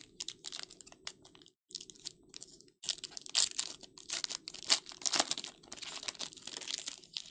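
Foil wrapper of a Panini Recon basketball card pack crinkling and tearing open in the hands: a run of dry crackles and rips, loudest in the middle.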